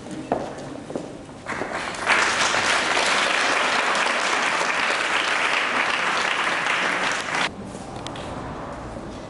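Audience applauding: a few light taps at first, then clapping that builds about two seconds in, holds steady, and cuts off abruptly after about five seconds.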